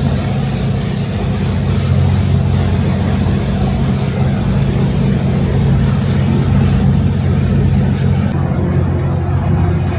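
Passenger ferry's engines droning steadily: a deep, even hum with a noisy rush above it. The higher hiss drops away suddenly about eight seconds in while the hum carries on.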